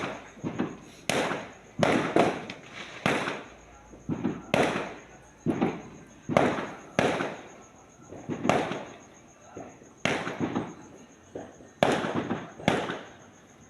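Fireworks bursting in a steady series of sharp bangs, about one a second, each trailing off in a short rumbling echo.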